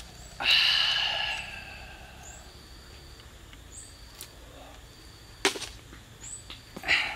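A man's drawn-out voiced exclamation just after the start, fading over about a second, then a few sharp snaps as a roasted duck is pulled apart by hand. A faint high chirp repeats every second or so.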